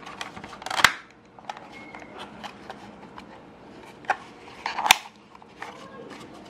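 Plastic clicks and rattles from a 1997 Mitsubishi Lancer's aircon louver assembly being pressed back into its dashboard bezel, with two sharp snaps, about one second in and near five seconds, as the clips engage.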